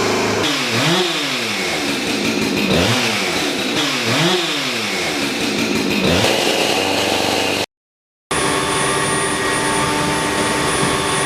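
An engine revved up and down about four times in quick blips. About two-thirds in, the sound cuts out completely for half a second, then a steadier engine drone with a thin high whine continues.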